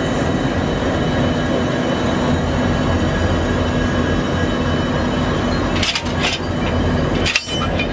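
WDG4 diesel locomotive's two-stroke V16 engine idling steadily. A few sharp metallic clicks come about six seconds in and again near the end as the coupler's release lever is worked by hand.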